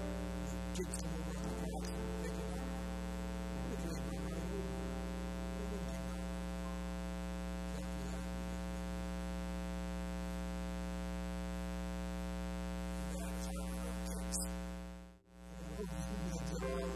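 Steady electrical hum made of a low buzz and a stack of steady overtones, cutting out briefly near the end.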